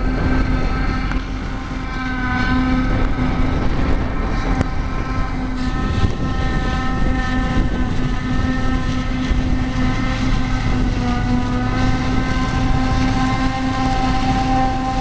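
John Deere self-propelled silage harvester running under load while chopping wheat silage, a steady engine hum with a high whine over it that shifts slightly in pitch partway through.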